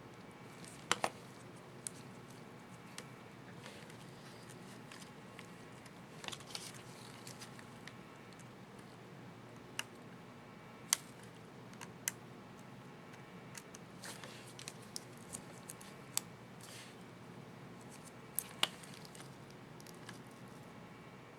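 Small plastic clicks and taps at irregular intervals as a laptop keycap and its retainer clips are handled and fitted, with a double click about a second in and another near the end.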